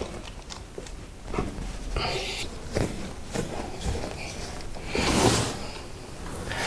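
Screwdriver turning the claw-fixing screws of a flush-mounted wall socket insert in its box: small scattered clicks and brief metal scrapes, the longest about five seconds in.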